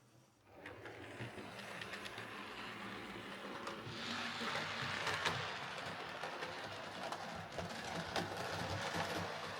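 Hornby OO gauge Class A4 Mallard model locomotive running along the track: its motor whirring and its wheels clicking over the rail joints. It is running fine, with its drive gear back on the axle spline. The sound starts about half a second in and gets louder about four seconds in.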